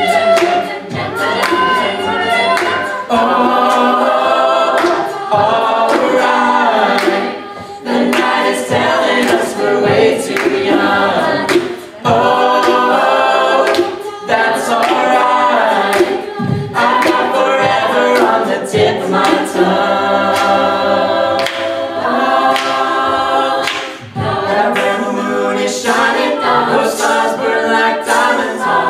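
Mixed-voice a cappella group singing a country-pop song, a lead singer on microphone over close backing vocal harmonies, with no instruments.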